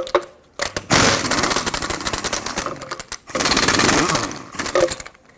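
Half-inch impact gun hammering the lug nuts loose on a pickup's wheel, in two bursts of rapid hammering with a short pause between.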